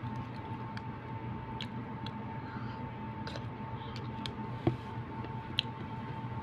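Metal spoon scooping fruit salad from a plastic cup: scattered light clicks and scrapes, with one sharper tap about four and a half seconds in. A steady background hum runs underneath.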